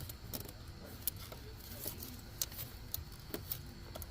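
Scattered light clicks and rattles of hands working the plastic wiring connectors of a steering column, over a steady low hum.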